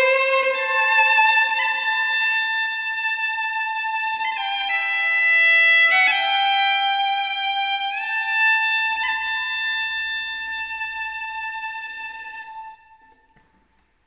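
Solo fiddle playing the closing phrases of a slow tune: long held notes that slide from one pitch to the next. The last note dies away about thirteen seconds in, hanging in the air of the reverberant kirk.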